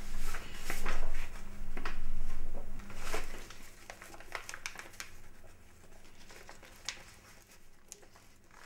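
Sheets of construction paper rustling and crinkling as they are handled and folded. The rustling is loudest in the first three seconds, then thins to quieter, scattered light rustles and clicks.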